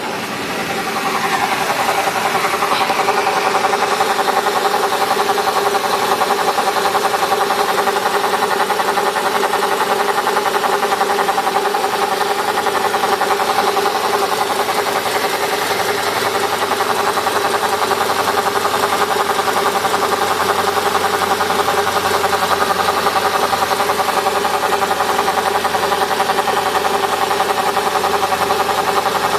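Mercedes-Benz CLK 500 running with a steady buzz that gets louder about a second in and then holds even.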